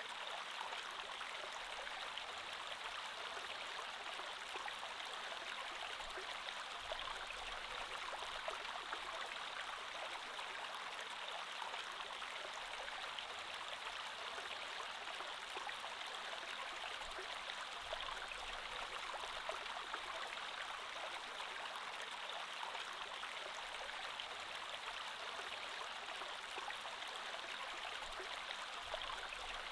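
Creek water flowing steadily over stones, a constant rushing and babbling with no breaks.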